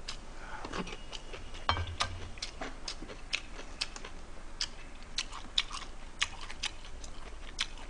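A person chewing a mouthful of kimchi and rice: a run of small crisp clicks and crunches, about three a second.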